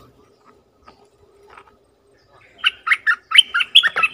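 A bulbul singing: a few faint notes, then from about two and a half seconds in a loud, quick bubbly phrase of chirping notes.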